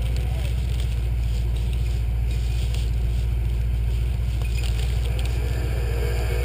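Engine of a modified off-road 4x4 truck running steadily at low revs, a deep, even rumble with no revving.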